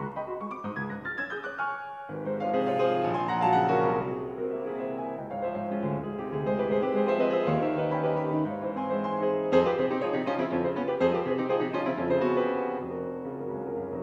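Bösendorfer grand piano played solo in a classical piece: a lighter rising run of notes, then about two seconds in a sudden louder passage of full chords over low bass notes that carries on with fast, dense playing.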